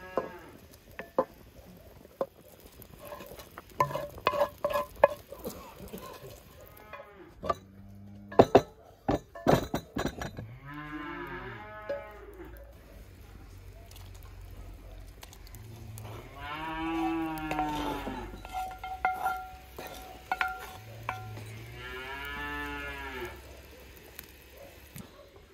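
A cow mooing three times in long, drawn-out calls. In the first half, metal cookware gives sharp knocks and ringing clinks as a wooden spoon scrapes a pan and stirs a large pot.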